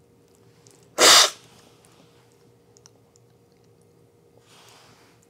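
A single loud, sharp slurp of coffee from a cupping spoon about a second in, lasting about a quarter second: the forceful aspiration used in coffee cupping to spray the coffee across the palate. A fainter breathy sound follows near the end.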